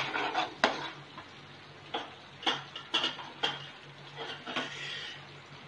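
Metal spoon stirring and scraping a thick, cooking milk-and-sugar mixture (palkova) around a nonstick frying pan, in a run of irregular scrapes and light clinks roughly every half second.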